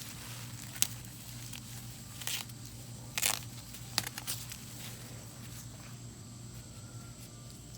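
Dry corn husks and leaves crackling and tearing in a few short bursts as an ear of corn is twisted off its stalk and handled. The sharpest crack comes about a second in, and a cluster of rustles follows around three seconds in.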